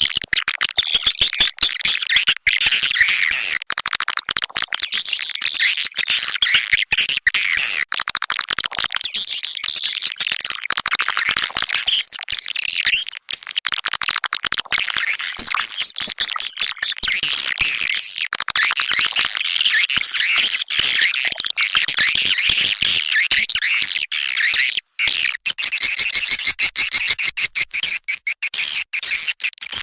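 Swiftlet lure call recording: a dense, continuous twittering of high swiftlet chirps, cut through by many sharp clicks. It is the kind of call track played in swiftlet nesting houses to draw swiftlets in.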